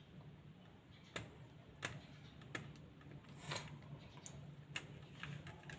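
Faint, irregular clicks and small taps from hands handling electrical wire, about five in a few seconds, over a low steady hum.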